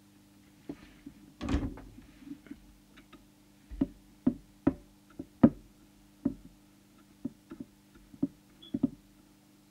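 A series of irregular clicks and knocks as a small trimming tool works the coil cores on the open chassis of a CB radio during transmitter alignment, over a steady low hum. The loudest knocks come about one and a half seconds and five and a half seconds in.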